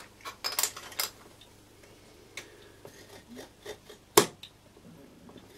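Stanley utility knife scoring along the break line of a small LED strip circuit board: a few short scrapes and light clicks, with one sharp click about four seconds in.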